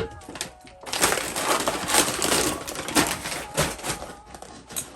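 Crunchy food being chewed: a dense run of crunching for about two seconds, then scattered crackles.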